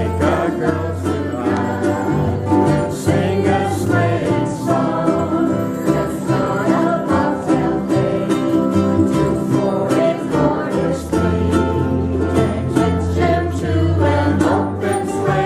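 Several ukuleles strummed together in a live ensemble, playing chords at a steady rhythm with low bass notes held beneath them.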